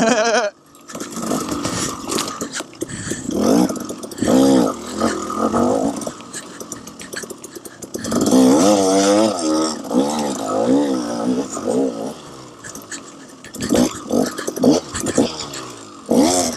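KTM 300 XC-W two-stroke dirt bike engine running under hard riding, its pitch rising and falling again and again with the throttle, with scattered knocks and clatter over rough ground.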